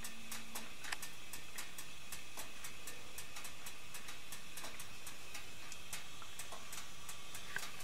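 Faint irregular clicking and crackling, several clicks a second, over a steady hiss, from the hot stainless roasting pan and oven holding a steaming turkey.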